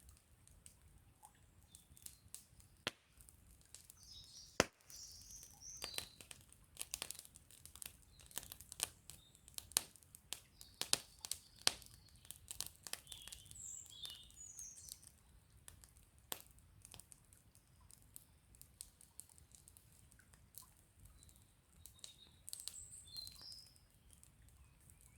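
Wood campfire crackling, with many sharp pops and snaps that come thickest partway through. Small birds chirp briefly now and then.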